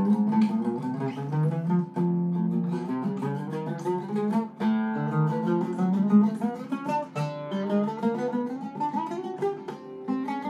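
Iraqi-style Zeryab oud with a cedar soundboard, plucked with a plectrum (risha): a fast melodic passage of many quick strokes ranging over the whole fingerboard, climbing in pitch near the end.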